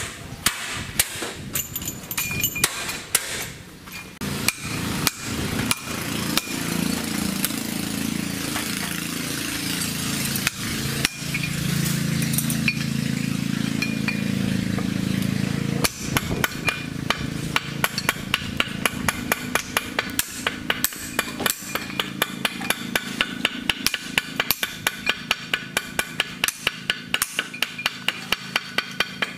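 Metal being struck with a hammer: scattered blows at first, a steady noisy stretch in the middle, then rapid, even tapping at about three strikes a second through the second half.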